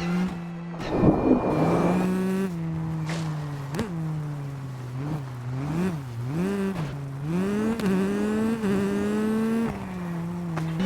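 1/10-scale Tamiya XV-02 RC rally car driving off-road, its drive pitch rising and falling over and over as it speeds up and slows through corners. A short burst of gritty noise comes about a second in.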